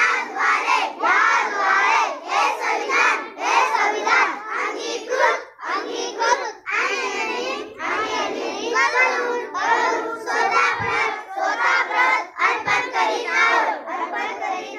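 A group of schoolchildren reciting a pledge aloud in unison, chanting it in a loud, steady rhythm.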